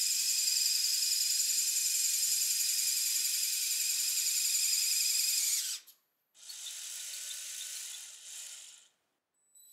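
Lego Technic pneumatic locomotive running on track, its electric-motor-driven air pumps giving a steady high-pitched whine. The whine cuts off suddenly about six seconds in, comes back quieter for a couple of seconds, and stops near the end.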